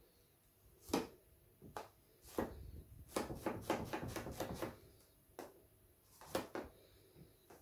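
A paint-covered rubber balloon dabbed again and again onto a canvas lying on a table: soft taps, first one at a time, then a quick run of rapid dabs about three seconds in, then a few more.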